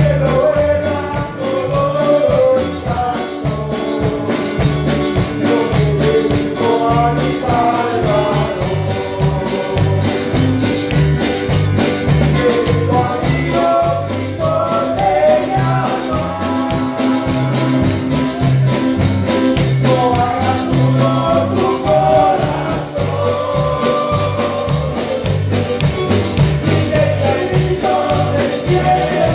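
A men's group singing a hymn together through microphones, over music with a steady, rhythmic bass line and shaken percussion.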